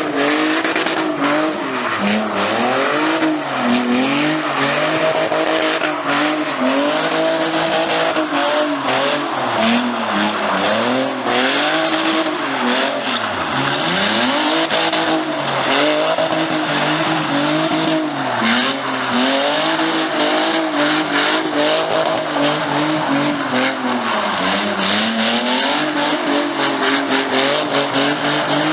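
Car engine revving hard, its pitch rising and falling every second or two, with one deep drop about halfway, over tyre squeal and sharp cracks: a car doing a burnout or drift.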